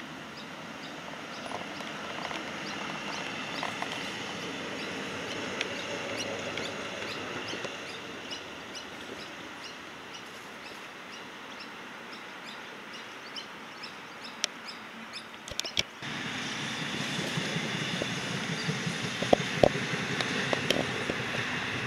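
Steady road traffic noise, with faint small bird chirps over it. About two-thirds of the way through it cuts abruptly to a louder stretch of traffic, with a few sharp knocks near the end.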